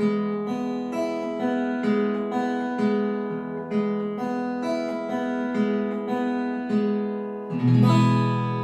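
Acoustic guitar played fingerstyle: a slow, even arpeggio, one plucked string at a time, about two notes a second, in a 1-2-3-4-3-2-3-2 picking pattern across a held chord. Near the end a fuller, louder chord is struck and left ringing.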